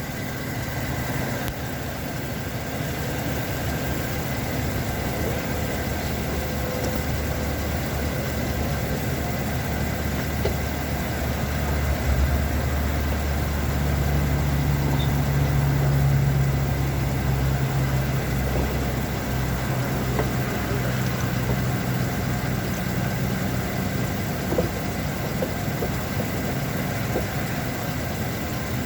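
A vehicle engine idling steadily, a low hum that swells a little about halfway through, with a few faint ticks.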